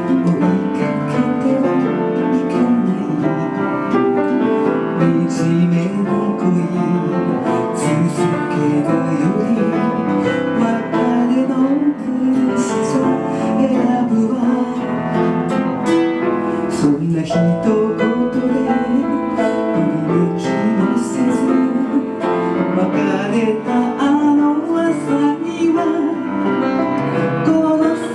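Instrumental passage of a slow ballad's backing music, with piano and plucked guitar playing chords and melody.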